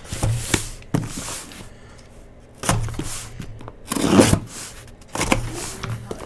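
Hands moving a cardboard shipping case and working at its taped seam: several short scraping, rustling bursts of cardboard and tape.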